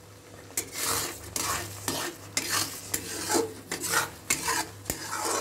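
Metal spatula scraping and stirring thick semolina kesari in an iron kadai, in repeated strokes about two a second starting about half a second in, with a light sizzle: ghee being mixed through the finished kesari.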